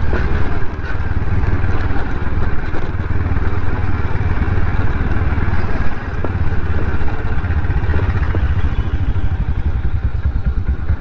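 Motor scooter ridden slowly, at about 25 km/h, over a rough dirt road: steady engine and ride noise, dominated by a dense low rumble.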